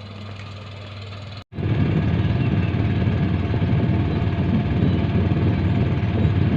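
A small boat's engine running steadily. After a brief dropout about one and a half seconds in, it comes back much louder and rougher.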